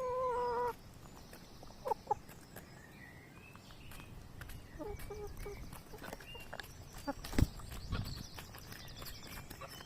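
Hens making short calls, with a longer held call right at the start, over scattered sharp clicks and one loud knock about seven seconds in.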